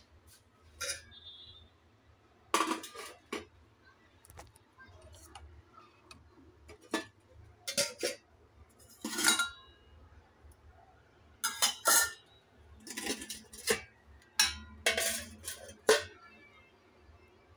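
Stainless steel idli-stand plates clinking and clanking against each other and the steamer pot as the idlis are taken out: irregular sharp metal knocks with a short ring, several coming in quick clusters.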